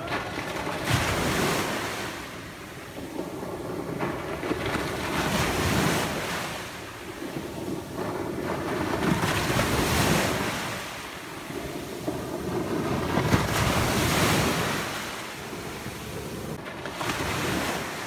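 Small ocean waves breaking and washing up onto the beach, the wash swelling and fading about every four seconds.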